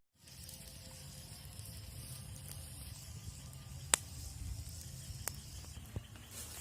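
Swiss potato frying over a campfire: a steady sizzling hiss, with a few sharp crackles, the loudest about four seconds in.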